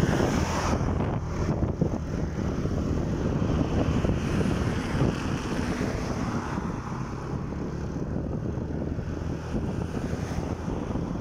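Motorcycle engine running under way, mixed with steady wind buffeting on the microphone.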